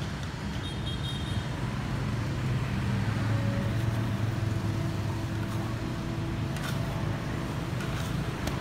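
Steady street traffic with motor engines running, swelling as a vehicle passes about three seconds in. A few light clicks of a metal spatula against the wok sound as chestnuts are stirred in hot salt.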